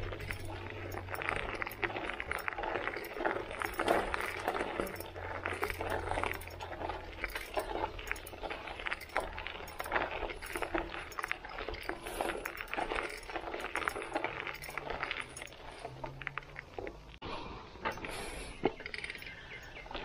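Mountain bike riding over a gravel and dirt trail: tyres crunching on loose stones and the bike rattling and clinking over the bumps.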